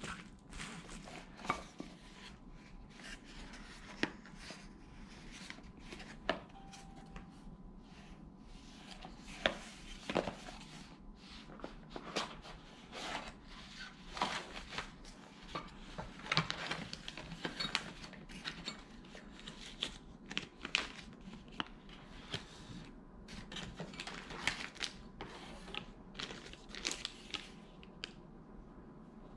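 Unboxing handling noise: a small cardboard box being opened and clear plastic packaging sleeves rustling as parts are lifted out, with many short, irregular taps and scrapes.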